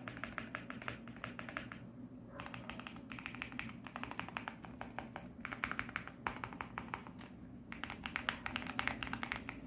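QK65 65% mechanical keyboard, built for a deep 'thock', being typed on quickly in fast runs of keystrokes, with brief pauses about two seconds in and near the middle-to-late part.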